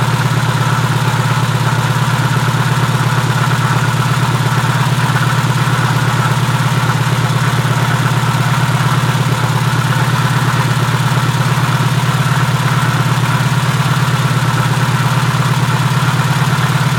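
VW Type 3 air-cooled flat-four engine idling steadily, heard up close in the engine bay.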